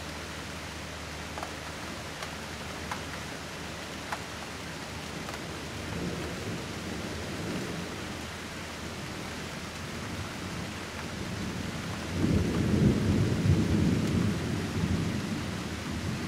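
Steady rain falling with a few drop ticks. Thunder rumbles low about six seconds in, then rolls louder near the end before easing off.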